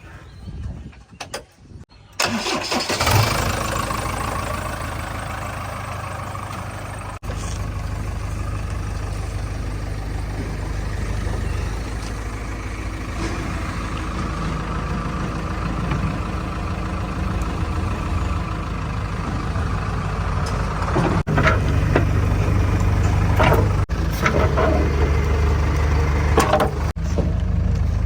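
A diesel engine starts suddenly about two seconds in and runs steadily, growing somewhat louder in the last third, with a few brief breaks.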